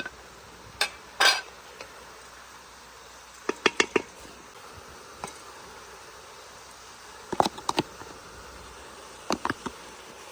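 Metal utensils clinking and scraping against cookware in short clusters of sharp knocks, with a brief longer scrape about a second in, over a faint steady hiss.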